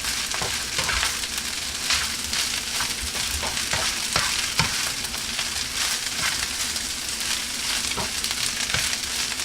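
Fried rice sizzling in a hot pan as a spatula stirs it, with frequent short scrapes and taps of the spatula against the pan. The heat has just been turned off, so the sizzle comes from the pan's remaining heat.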